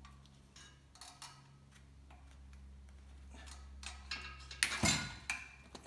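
Scattered light clicks and knocks as the Porsche 996's catalytic converter and its fittings are worked loose by hand, with a louder clunk and clatter about five seconds in, over a steady low hum.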